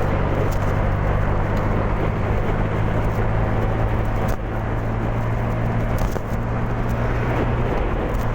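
Honda Genio scooter riding along: its small engine runs at a steady hum under even wind and road noise.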